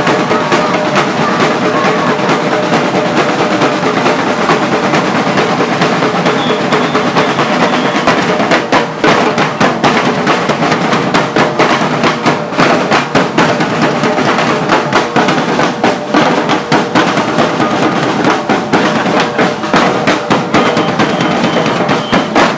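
Street percussion band playing marching drums and metal bin drums together, struck with sticks and mallets in a fast, dense rhythm. From about eight seconds in the strokes stand out more sharply, and the playing stops at the very end.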